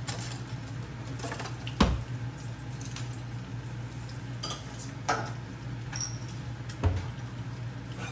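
Kitchen utensils and cookware clinking and knocking at the stove: three sharp knocks, the loudest about two seconds in, the others around five and seven seconds, over a steady low hum.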